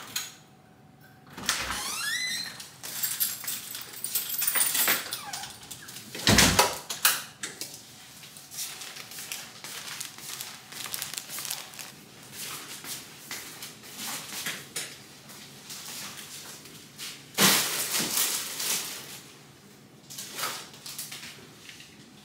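Household door and handling noises: a door opening and shutting, with irregular knocks, a short rising squeak and rustling.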